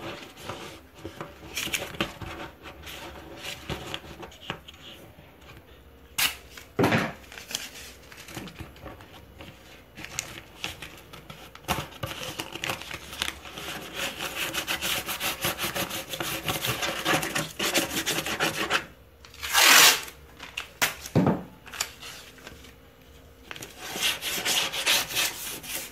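Hands rubbing, pressing and scraping on foil-lined milk-carton board, with scattered clicks and a few louder knocks, the loudest about two-thirds through.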